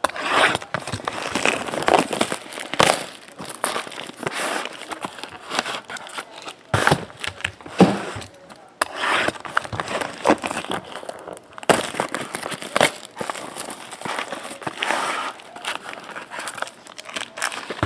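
Plastic shrink wrap and gold foil pack wrappers of a sealed trading-card box crinkling and tearing. The box is slit open with a utility knife and its foil-wrapped packs are handled, giving a continuous crackly rustle with frequent sharp crackles.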